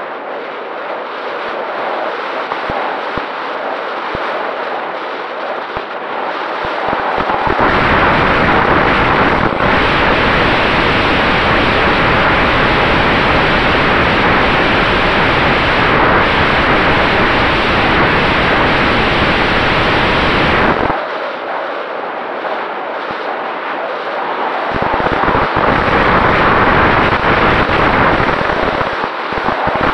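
Heavy wind rush buffeting the microphone of a camera on the nose of an EasyGlider Pro RC glider in flight. From about 8 s to 21 s the electric motor drives the folding propeller, and the rushing grows louder and fuller, then eases back when the motor stops.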